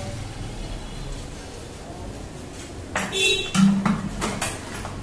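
A few sharp taps and clinks with a short ringing, starting about three seconds in, as a plastic milk can's lid is closed and a steel pot is handled after milk has been poured.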